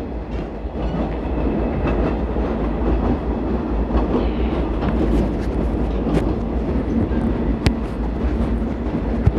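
Commuter train running, heard from inside the passenger carriage: a steady rumble with a few sharp clicks scattered through it.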